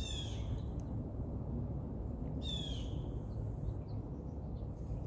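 A bird calling twice, each call a short falling note, about two and a half seconds apart.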